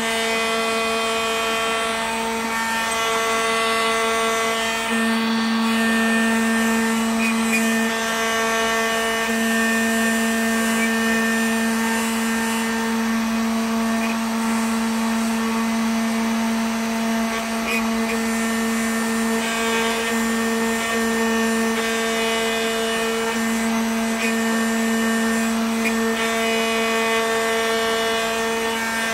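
Homemade CNC router carving a block of candle wax with a small engraving bit: a steady motor hum with a strong, even pitch that grows a little louder at times.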